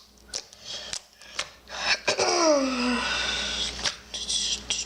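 Homemade slime being squished and stretched by hand for ASMR, giving short sticky clicks and pops. About two seconds in comes a falling pitched sound followed by a brief rush of noise.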